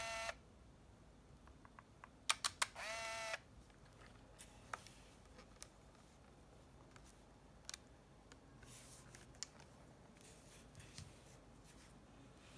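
Olympus Trip AF 51 compact film camera: a few sharp clicks of the shutter release, then its small motor whirs for about a second, about two seconds in. After that, scattered light clicks from its buttons being pressed and handled.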